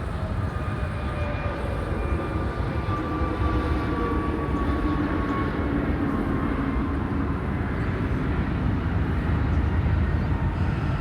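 Jet airliner's engines rumbling steadily as it flies past, with a whine that slowly falls in pitch.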